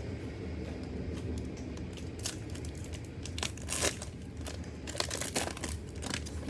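Cellophane wrapper of a Panini Mosaic football cello pack being torn open and crinkled, in irregular crackles that come in several louder bunches.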